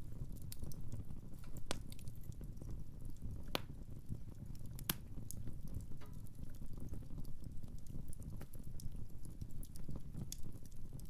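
Wood fire burning in a fireplace: a steady low rumble of flames with scattered sharp crackles and pops, the loudest about five seconds in.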